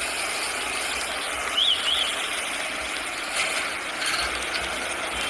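Rough, crackling outdoor noise from amateur footage of a fire scene, with two short high chirps about one and a half seconds in.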